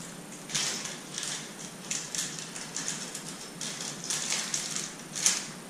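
Crinkling and rustling of plastic handled in the hands: a run of short, irregular crinkles, with a sharper one about five seconds in.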